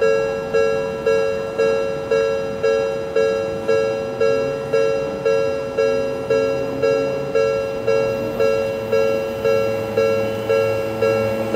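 Japanese railway level-crossing alarm: an electronic bell tone clanging evenly about twice a second, each strike dying away. An approaching electric train's low rumble rises underneath in the second half.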